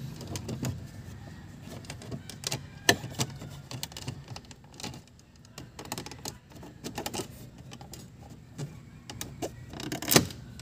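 Scattered plastic clicks and knocks of a Mitsubishi Lancer GSR's dashboard aircon vent being pressed into the dash and its louver fins moved by hand. The sharpest clicks come about three seconds in and near the end.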